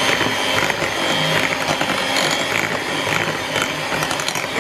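Electric hand mixer running steadily with a high motor whine, its metal beaters rattling in a ceramic bowl as an egg is beaten into creamed butter and sugar for cookie dough.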